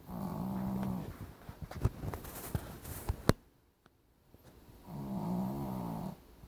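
A sleeping pet snoring: two long snores about four seconds apart, with a few sharp clicks between them.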